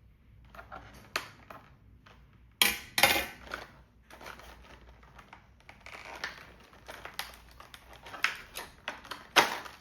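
Crinkling plastic packaging and small clicks as a doll is worked free of its box inserts, with louder crackles a little over two and a half seconds in and near the end.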